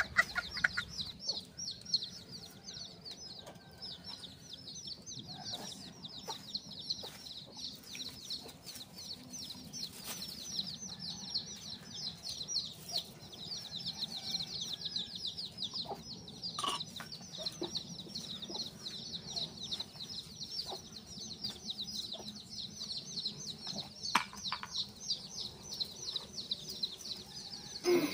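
Birds chirping in a fast, unbroken stream of short, high, falling chirps, with scattered clicks and a faint low hum underneath.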